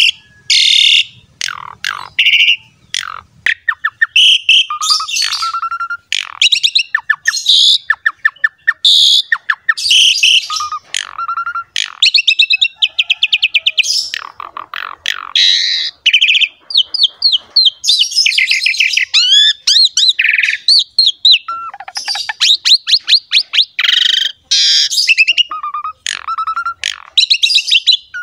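Asian pied starling (jalak suren) in full song: a fast, varied stream of whistles, rapid chattering trills and harsh squawky notes in short phrases with brief pauses.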